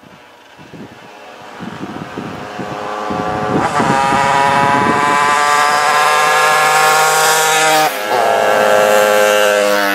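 A moped's engine approaching along a gravel road, growing steadily louder as it nears. The engine note breaks off briefly about eight seconds in, then picks up again.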